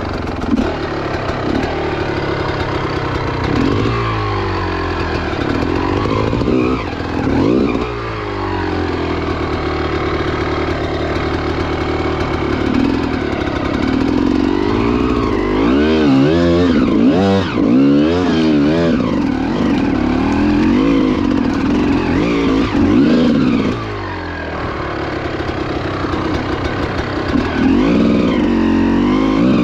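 GasGas EC300 two-stroke single-cylinder dirt bike engine revving under hard off-road riding, its pitch rising and falling constantly with the throttle. Around the middle it swings up and down very quickly in repeated short blips, and it drops back briefly a little later before revving up again near the end.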